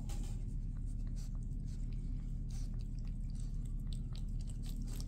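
A cat licking a lickable paste treat from a squeeze tube held in the hand: quick, irregular wet lapping and mouth clicks over a steady low hum.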